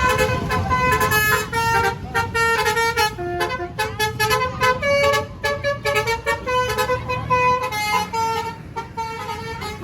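Basuri V3 telolet bus horn playing a quick melody of short stepping notes, with a bus engine running underneath.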